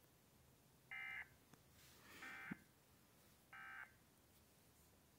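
Three short buzzy digital data bursts, a little over a second apart: the Emergency Alert System end-of-message (EOM) tones that mark the close of the alert. They are played through a computer speaker.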